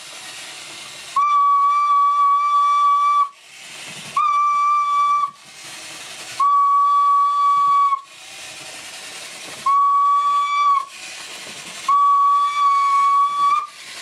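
A hand whistle blown five times, each a steady single-pitch blast of one to two seconds. This is the tone signal for a whistle-controlled toy robot bulldozer: each blast makes it reverse one tread and turn. Between blasts the toy's small TT gear motor and plastic treads run more quietly.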